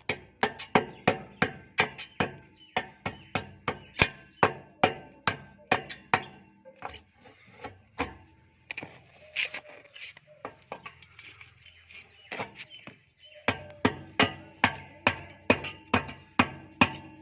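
Repeated hammer blows on a pipe as it is broken open, about two to three ringing strikes a second, thinning out for several seconds in the middle before the steady hammering resumes.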